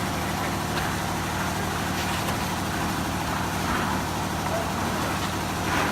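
An engine running steadily, a constant low drone with a wide noisy hiss on top.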